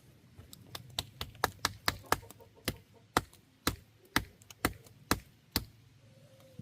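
A series of sharp taps on a hard surface, about fourteen over five seconds at an uneven, roughly two-a-second pace.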